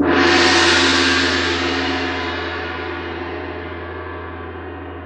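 A gong struck once, ringing and slowly fading away over several seconds.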